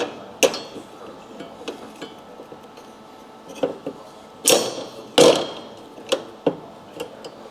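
A few sharp metal knocks and clanks from steel mounting plates, blocks and tools being handled and struck against the truck's steel chassis; the two loudest come close together a little past the middle.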